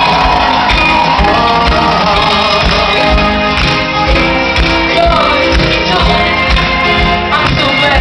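Live soul band playing loudly: a lead vocal over electric guitars, keyboard and a drum kit with a steady beat, heard from within the crowd in a hall.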